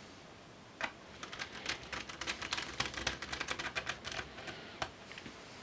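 A precision screwdriver driving a Torx T5 screw into a laptop's aluminium base panel. A click about a second in, then a dense run of quick ticks and clicks for about three seconds, and a few more clicks near the end.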